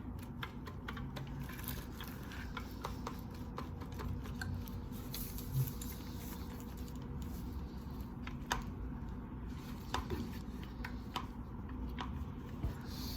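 Scattered small clicks and taps of hard plastic and metal parts being handled, as a drivetrain part is turned and pushed into an Arrma Typhon RC car's gearbox until it lines up with the gears inside. A low steady hum runs underneath.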